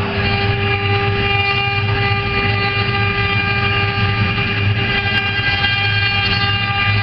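Four spindle motors of a four-head CNC router running together while their bits engrave wood blocks: a steady high whine of several held tones over a low hum.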